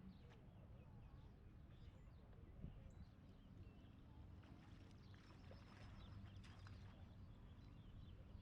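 Near silence: faint outdoor lakeside ambience with a low steady rumble and scattered small bird chirps.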